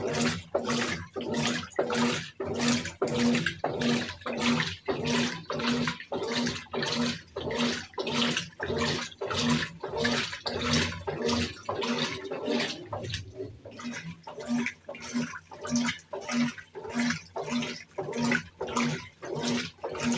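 Brastemp 17 kg top-loading washing machine agitating a load in water on turbo agitation: water sloshing with a motor hum in a steady rhythm of about two strokes a second, with a brief pause about two-thirds of the way through.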